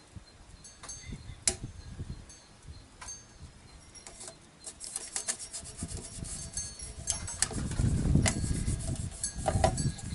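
Aluminium foil tape being handled and pressed onto a chrome motorcycle muffler: crinkling, rubbing and light clicks, which get louder and denser over the last few seconds.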